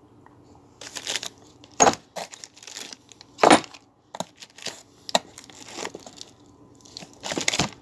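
Plastic wrapping crinkling and rustling around the oiled steel parts of a clamping kit in a wooden box, in irregular handling bursts. A few sharp clicks and knocks are mixed in as the pieces are moved.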